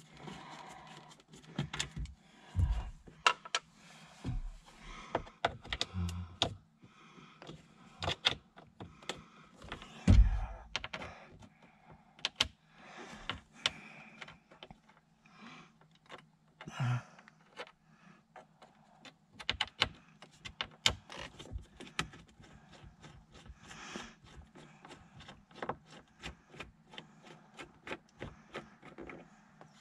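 Irregular clicks, taps and knocks of hands and a screwdriver working at a car's plastic dashboard trim while its screws are taken out, with a few heavier thumps about 3, 6, 10 and 17 seconds in.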